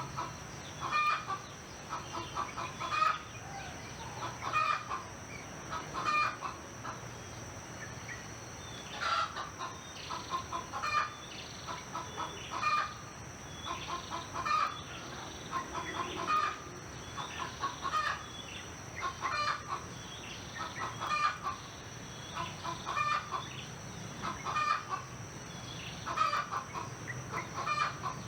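Chickens clucking in short calls repeated about every two seconds, with a steady high-pitched whine underneath.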